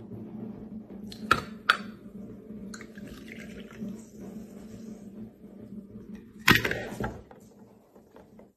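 A drink being poured from a drinking glass into a small plastic cup, a steady trickling splash, with a couple of light knocks of glass against cup between one and two seconds in. A loud clunk comes about six and a half seconds in, then the pouring stops.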